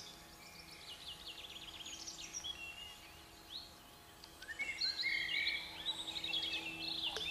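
Songbirds singing: a run of quick chirps and trills, busier and louder in the second half.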